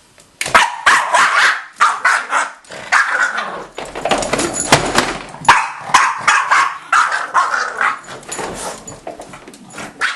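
Boston terrier barking over and over in quick succession, a few barks a second without a break, agitated by a vacuum cleaner.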